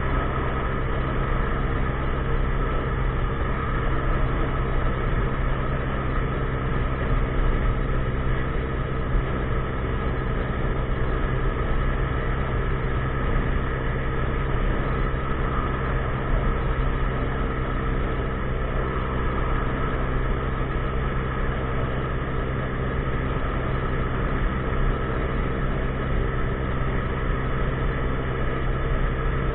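A 50cc scooter's single-cylinder engine running at a steady, unchanging pitch.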